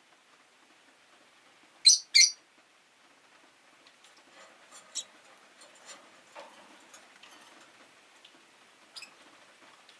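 Rosy-faced lovebirds chirping: two loud, sharp chirps in quick succession about two seconds in, then scattered fainter chirps.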